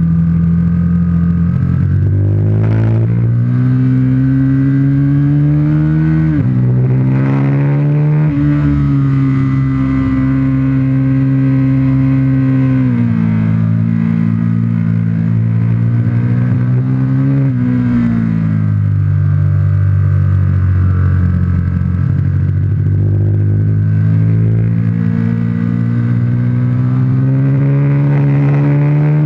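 Aprilia RSV 1000 Factory's V-twin engine at track speed, heard from a camera mounted on the bike. Its pitch climbs under acceleration from about 2 seconds in, with short dips at gear changes, drops around 13 and again around 18 seconds as the bike slows for corners, then climbs steadily again.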